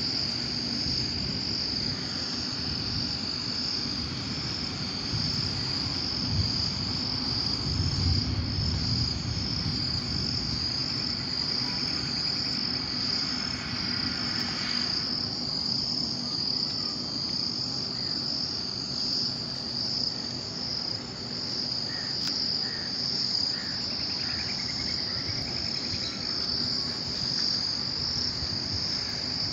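Steady high-pitched insect chorus, a continuous trill like crickets in wet grass. A low rumble swells about eight seconds in.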